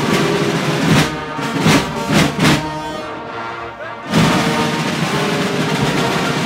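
Carnival band music with brass and drums, under the dense noise of a large packed crowd. Several drum strokes fall in the first half, and the music drops back briefly before coming in loud again about four seconds in.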